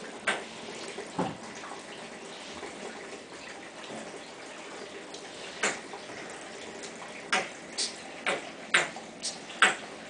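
African grey parrot making short, sharp clicks and pops over a steady background hiss: two in the first second and a half, then a run of about seven in the last four seconds, coming faster toward the end.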